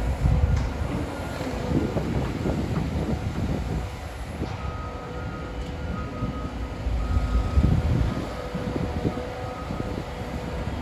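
Caterpillar 325 hydraulic excavator digging: a steady low diesel-and-hydraulic rumble that swells louder at the start and again around eight seconds in, with a faint steady whine over it.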